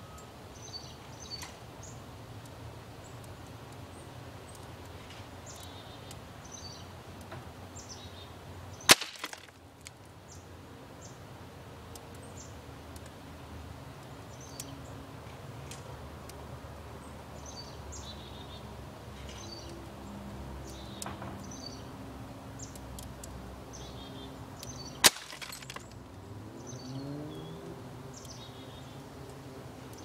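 Two single sharp shots from a pellet gun, about sixteen seconds apart, each a sudden crack far louder than the background.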